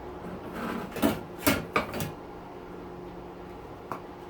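Dishwasher parts being handled during teardown: a quick cluster of four or five knocks and clatters about a second in, then a single light click near the end.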